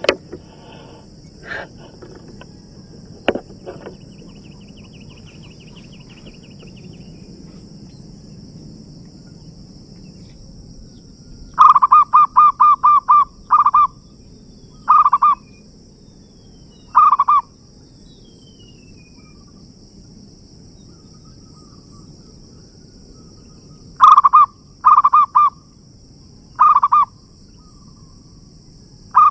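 Zebra dove (perkutut) cooing: a quick run of about eight short notes, then single notes and short groups at intervals. A steady high-pitched drone runs beneath.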